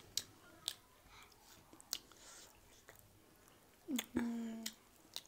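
People chewing momo dumplings and noodles close to the microphone, with soft wet mouth sounds and a few sharp clicks. About four seconds in there is a short voiced hum.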